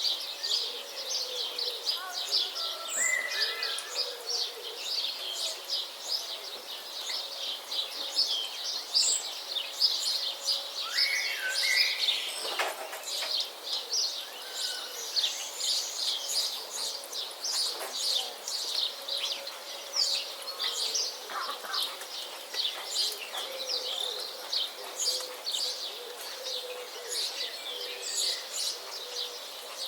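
A chorus of small birds chirping and twittering outdoors, many short, quick chirps overlapping without a break, with a few lower calls now and then and a faint steady hum underneath.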